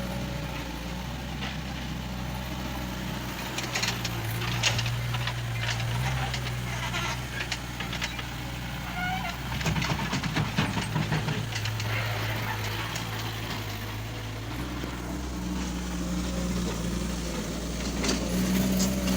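JCB 1CX compact backhoe's diesel engine running under working load, its note stepping up and down several times as the machine is worked, with scattered clicks and knocks through the middle.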